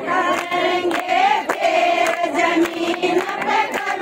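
A crowd of women singing a rousing folk song together in long held notes, clapping their hands in time.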